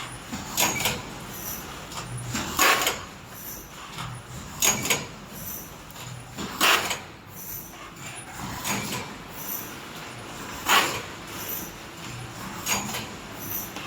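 A horizontal form-fill-seal stand-up pouch packaging machine running through its cycle. A short hiss comes about every two seconds, with lighter mechanical sounds between the hisses.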